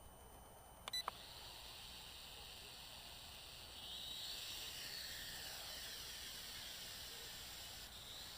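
Two sharp clicks about a second in, then the propellers of a JXD 509 toy quadcopter whirring in a high whine whose pitch sweeps up and down, growing louder at about four seconds as it spins up and flies.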